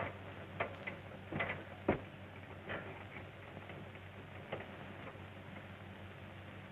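Scattered knocks and clicks, irregularly spaced, the loudest about two seconds in, over the steady hum of an early sound-film soundtrack.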